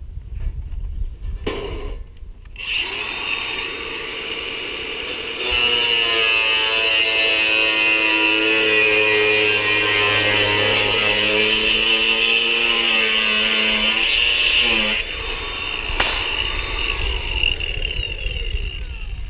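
Makita angle grinder starting up about three seconds in, then cutting through thin sheet steel with a loud, steady high whine for about ten seconds, its pitch wavering as the disc bites. It is switched off at about fifteen seconds and the disc winds down with a falling whine.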